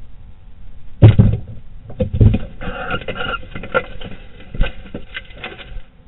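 Barn owls moving about in a nest cavity: heavy thumps about a second in and again near two seconds, then scratching and knocking of feet and wings on the wooden floor, heard close on a small nest-camera microphone. A short rough call sounds from about two and a half to three and a half seconds in.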